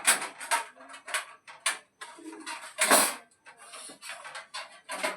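Hard objects clicking and clinking as they are handled, several sharp knocks a second, with one louder clatter about three seconds in.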